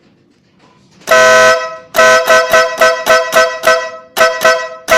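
Stebel-style compact electric air horn sounding loudly. One long blast comes about a second in, then a quick run of about seven short toots, two more toots, and another long blast starting near the end.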